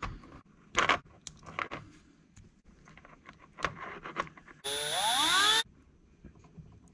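Light clicks and scrapes of small plastic RC truck suspension parts being handled and popped apart. A little under five seconds in, a loud rising whine with hiss lasts about a second.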